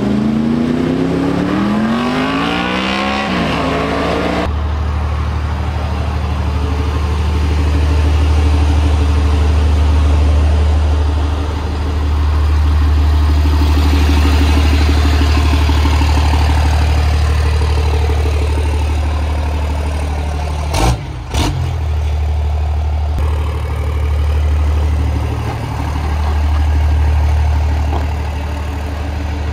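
A motorcycle accelerates past with a rising engine note and one gear change. Then a Dodge Ram race truck's 5.9 Cummins diesel runs at low revs as the truck creeps along, its note rising and falling slightly. Two sharp knocks come about two-thirds of the way through.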